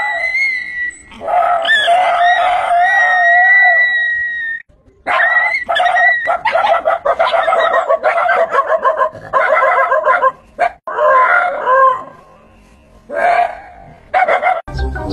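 Frightened dogs reacting to a stuffed toy tiger: a long, wavering, high-pitched howling scream, then, after a short break, rapid frantic barking and yelping.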